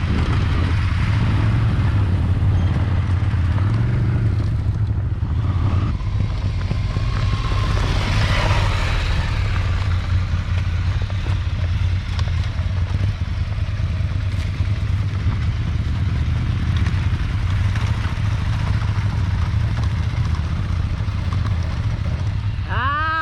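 Scrambler Ducati motorcycle's air-cooled L-twin engine running steadily on a dirt off-road course.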